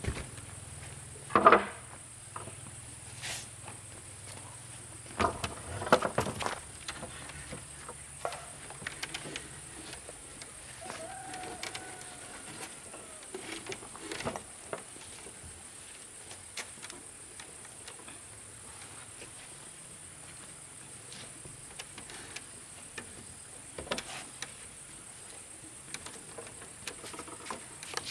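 Insects buzzing steadily at a high pitch, with scattered knocks and clicks; the loudest knocks come about a second and a half in and again around six seconds in.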